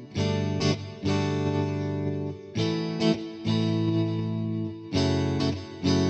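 Background music: guitar chords strummed and held, with a new chord about every one to one and a half seconds.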